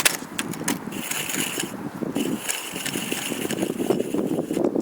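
Sharp clicks and scrapes from a few seconds of handling a tip-up's fishing line at the ice hole, followed by a rough rustling that grows louder as the line is worked by hand.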